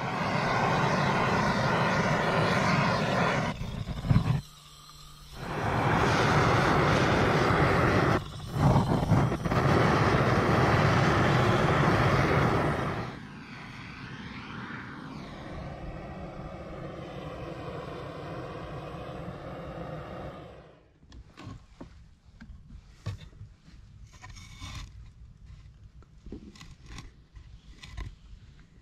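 Loud, steady heavy rain noise, cut off twice for a moment, ending about halfway through. A quieter wavering hum follows. Near the end come a few light knocks and clicks.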